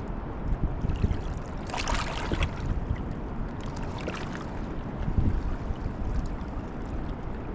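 Rushing Niagara River water with wind rumbling on the microphone, rising and falling, and a brief louder hiss about two seconds in.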